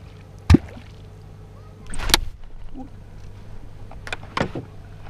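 A Perm-style catfish kvok slapped into the water, giving deep, gulping plops: one about half a second in, a longer splashy one about two seconds in, and two quick ones just after four seconds. The strikes are calls meant to draw catfish up from the bottom.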